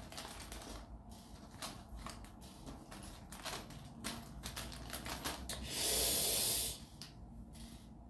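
Crinkling of a clear plastic bag of small Lego pieces being handled, with light clicks of the pieces, and a louder rush of noise lasting just under a second about six seconds in.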